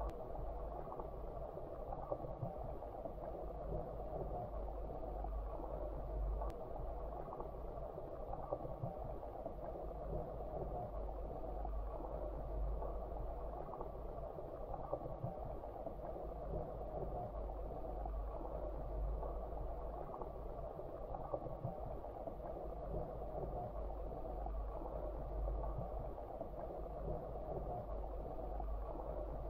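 Muffled underwater sound of a freshwater stream picked up by a submerged camera: a steady low rumble and hiss of moving water, with faint scattered ticks.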